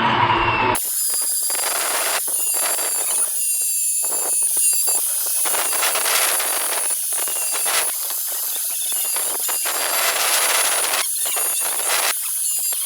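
Steel cleaver blade being sharpened on a grinding wheel: a harsh hissing, squealing grind that stops briefly and starts again several times as the blade is lifted and set back on the wheel.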